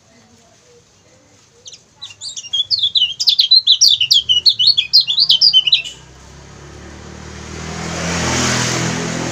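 Lemon-bellied white-eye (kecial kuning) singing a fast, jumbled twitter of high chirps for about four seconds, starting about two seconds in. After it, a rush of noise with a low hum swells up and then begins to fade.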